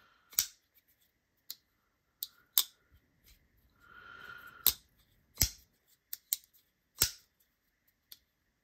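Winter Blade Co. Mirage folding knife flicked open and shut over and over, each action a sharp metallic snap, about ten at uneven spacing. A soft handling rustle comes about halfway through.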